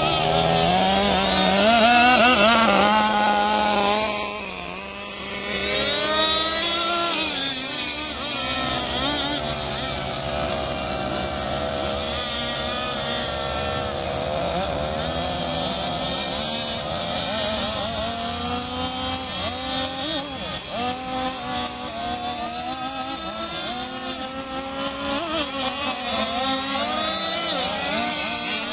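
Fuel-powered radio-controlled racing boats, their small two-stroke engines buzzing at high revs, the pitch rising and falling as they run and turn; more than one engine can be heard at once.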